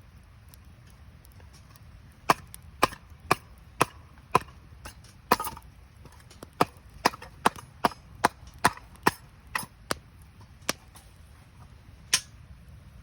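A run of sharp wooden cracks starting about two seconds in, coming about two or three a second through the middle, over a low steady rumble.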